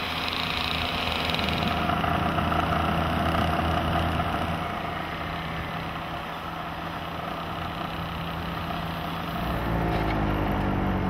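Small moped engines running steadily under way, with a heavier low rumble and a wavering engine pitch coming in near the end.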